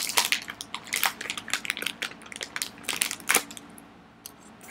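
Plastic candy packaging crinkling and crackling as it is opened and handled, in a quick run of sharp crackles that die down near the end.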